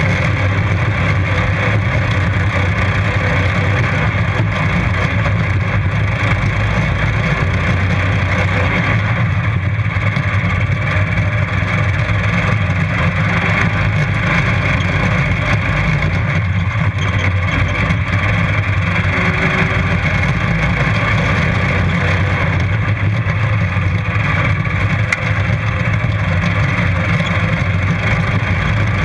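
Racing lawn mower engine running hard and steady at full throttle, loud and close, mixed with rushing noise from the mower crossing rough grass.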